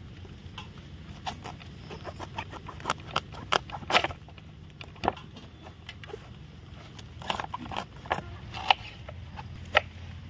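A series of sharp, irregular clicks and taps, some of them close together, over a steady low hum.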